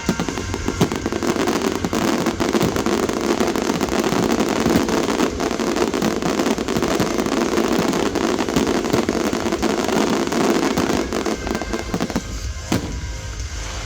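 Fireworks display: a dense barrage of crackling and banging shells for about twelve seconds, thinning to a few separate bangs near the end.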